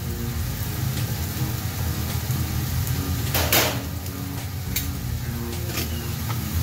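Diced beef, bacon and vegetables sizzling steadily on a hot flat-top griddle under a heap of Oaxaca cheese, with background music. A short, louder burst of noise comes about halfway through.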